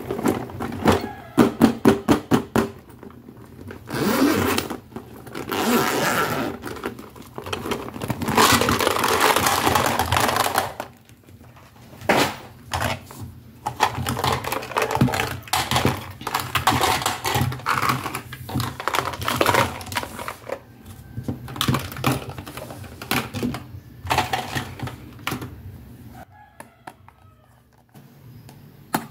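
Hands handling a clear vinyl toy pouch and hard plastic doll accessories: stretches of crinkling plastic broken by quick clicks and taps of plastic pieces, with a dense run of clicks in the first few seconds.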